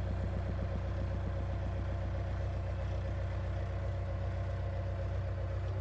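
WOLF WS1100 skid steer loader's engine running steadily while the loader arm is raised by its hydraulics. The engine note shifts slightly near the end.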